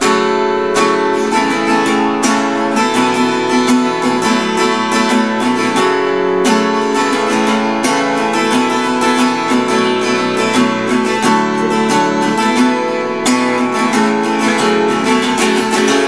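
Seagull Entourage Grand parlor-size acoustic guitar strummed in a steady rhythm, chords played around the second fret.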